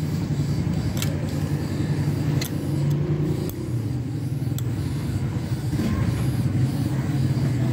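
Steady low rumble of a running engine or motor in the background, with a few light clicks.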